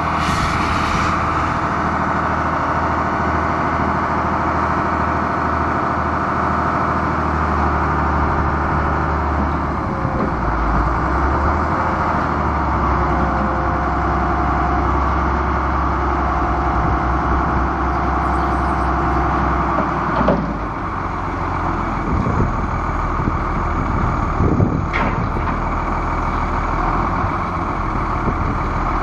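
Diesel engine of a 1995 Ford F800 truck, a Cummins ISB 5.9L, running steadily. Its low note shifts about a third of the way in, and a few short clunks sound in the second half.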